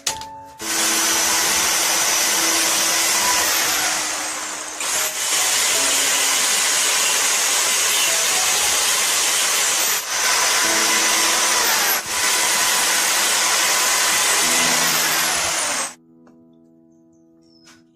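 A power tool running loudly and steadily in long stretches, with a hissing noise and short breaks, cutting off about two seconds before the end; soft background music plays underneath.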